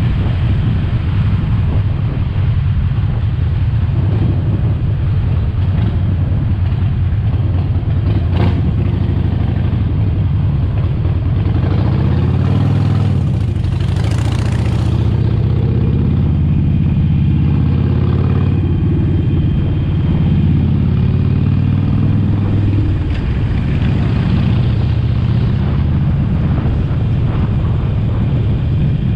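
Harley-Davidson Sportster Forty-Eight's air-cooled V-twin running under way, with its note dipping and then climbing again about halfway through as the revs change.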